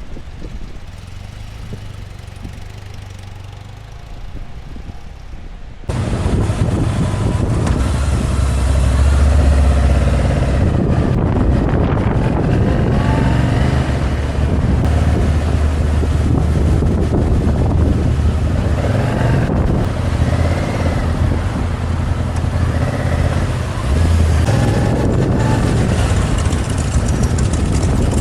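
Motorcycle engine running on the road with wind noise. A quieter low hum for the first few seconds, then a sudden jump in loudness about six seconds in, the engine note rising and falling.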